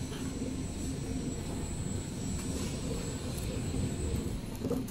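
XY-GU-27B two-head napkin packing machine running: a steady mechanical drone.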